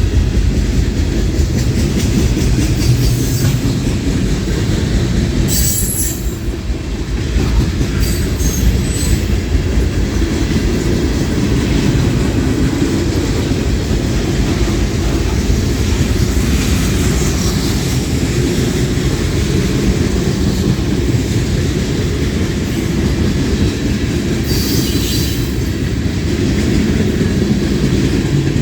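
Freight cars of a long manifest train rolling past close by: a steady rumble of steel wheels on rail, with brief high wheel squeals about six seconds in, around eight seconds, and again near the end.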